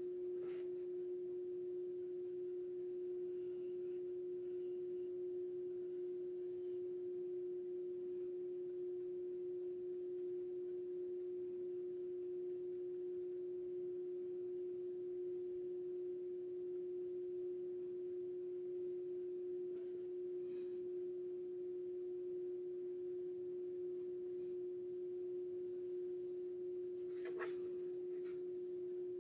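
A steady, unbroken hum on one pure tone, with a few faint clicks or taps about half a second in and a small cluster near the end.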